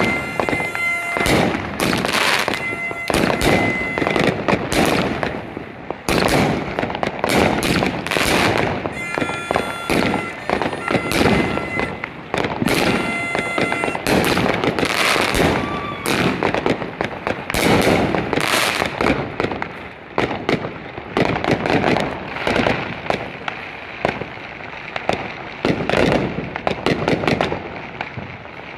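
Fireworks exploding in quick succession: a near-continuous run of sharp bangs and crackles, with steady high whistling tones over them in the first few seconds and again around ten to fourteen seconds in.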